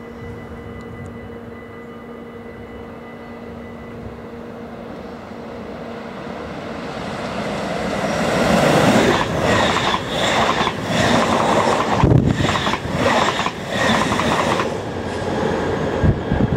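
NS DDZ double-deck electric intercity train running through a station without stopping. A steady hum builds over the first several seconds as it approaches. From about eight to fifteen seconds in it passes close by: loud rushing rail noise with a rapid run of wheel clatter, easing off near the end.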